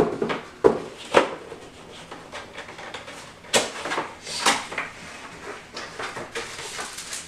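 Cardboard graphics-card box and its packaging being handled and opened: a few sharp knocks in the first second and a half, then sliding and rustling of the packaging.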